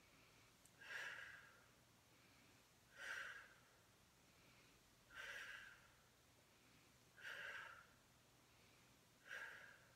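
A woman's quiet, forceful exhales, five in a row about two seconds apart, one with each rep of a side-lying Pilates clam exercise.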